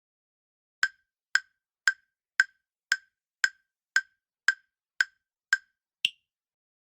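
Quiz countdown-timer sound effect: ten sharp ticks at about two a second, then one higher-pitched tick that ends the count.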